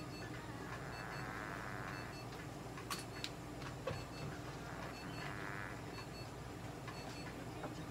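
Steady hum of clinic equipment, with faint short electronic beeps recurring now and then. There are a couple of brief hissing noises and a few light clicks.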